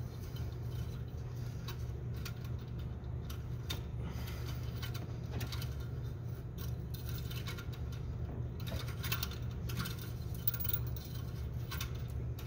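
Irregular light metallic clicks and scrapes of a Subaru Impreza's engine-oil dipstick being worked into its tube, as it is fiddled to get it aligned. A steady low hum runs underneath.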